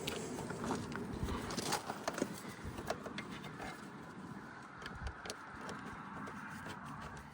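Scattered light metallic clicks and scrapes of a wrench working on power steering hose fittings, over a steady background hiss.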